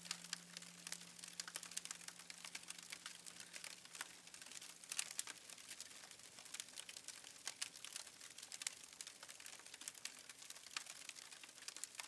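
Wood fire crackling: irregular sharp pops and snaps, several a second.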